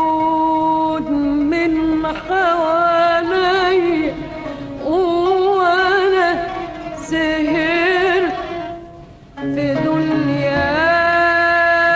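Classical Egyptian Arabic music: a wavering melodic line with strong vibrato moves through several phrases. It fades briefly about nine seconds in, then glides up into a long held note.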